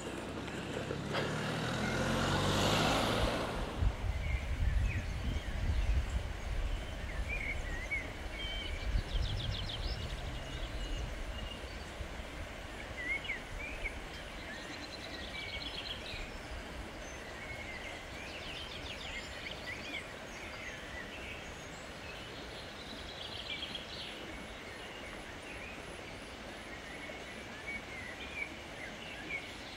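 Small birds singing in open countryside, short chirps scattered throughout. In the first few seconds a rushing sound swells and fades, followed by a low rumble.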